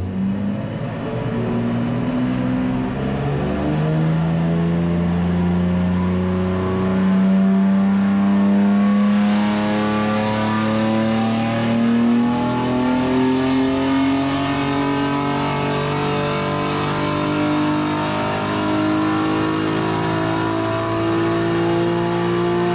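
BMW M3 Competition's twin-turbo straight-six, breathing through a Scorpion downpipe and cat-back exhaust, doing a full-throttle power run on a rolling-road dyno. The revs drop at a couple of upshifts in the first few seconds, then climb steadily under load for most of the run, and fall away at the end as the throttle is lifted.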